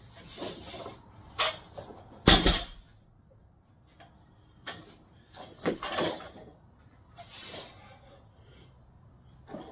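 A loaded barbell with bumper plates hitting the rubber gym floor with one heavy thud about two seconds in, the loudest sound here. Smaller knocks of the bar and plates and short breathy sounds follow about five to six seconds in, as the bar is pulled from the floor again.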